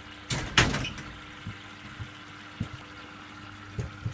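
Servis Quartz MK601 washing machine washing, with the drum turning over a steady motor hum. There is a loud swish of water and laundry about half a second in, then a few soft thumps as the load tumbles.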